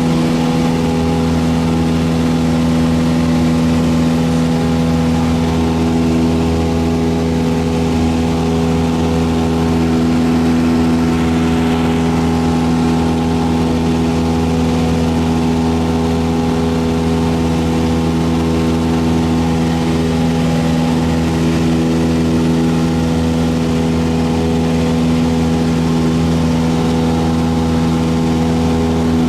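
Cessna 172's piston engine and propeller running with a steady, unchanging drone.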